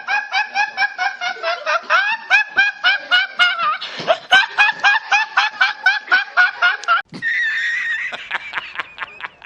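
High-pitched laughter meme sound effect: a rapid run of short repeated "ha" pulses, about four or five a second. About seven seconds in it cuts off suddenly and a different laugh follows, a held higher note, then more quick pulses.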